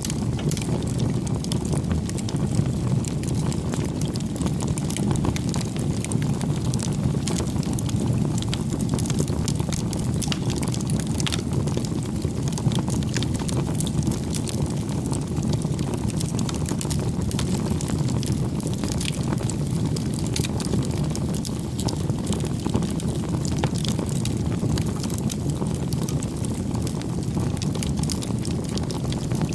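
Wood fire burning: a steady low rumble of flame with frequent small sharp crackles and pops of burning wood.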